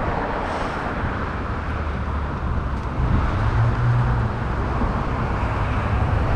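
Road traffic at a busy intersection, vehicles passing with tyre and engine noise. About three seconds in, a low engine drone from a nearby vehicle grows louder.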